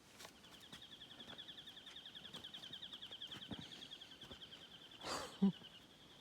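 A small animal's high, rapid, even trill of pulses, held for about five seconds. A brief louder noise cuts across it about five seconds in.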